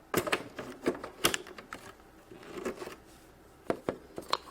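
Small plastic toy pieces being handled, clicking and tapping against each other and the table: a quick cluster of clicks in the first second and a half, then a few more near the end.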